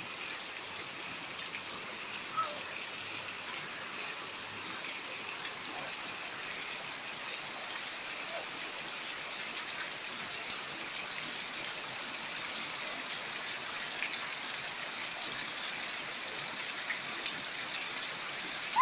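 Steady rain falling, an even noise of drops that holds without letup.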